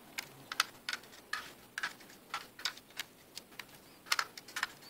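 Small screwdriver clicking against laptop heatsink mounting screws as they are tightened half a turn at a time: a string of light, irregular clicks, a few each second.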